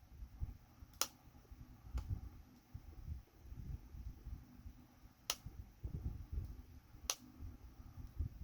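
Four sharp little clicks with soft handling bumps between them, as small fitted steam-valve parts are worked at to pry them loose from a model ship.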